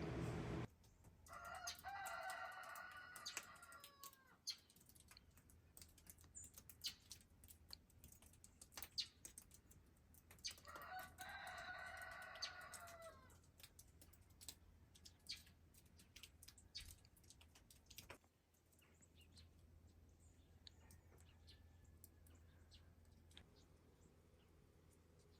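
A rooster crowing twice, about eight seconds apart, each crow lasting two to three seconds. Faint scattered clicks run between the crows.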